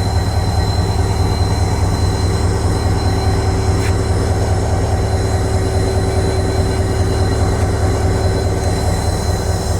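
Pakistan Railways HGMU-30 diesel locomotive running, a loud steady pulsing rumble with a thin steady high whine above it.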